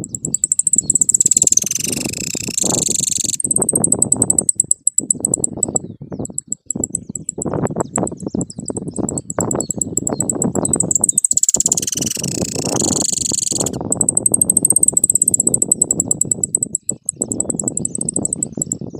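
Caged saffron finch (jilguero) singing a long, fast song of high notes repeated many times a second, with two louder, fuller phrases, one at the start and one about twelve seconds in. Wind rumbles on the microphone underneath.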